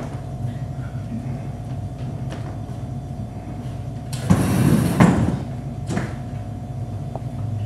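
A burst of noise lasting about a second, starting about four seconds in, followed by a short knock, over a steady low hum.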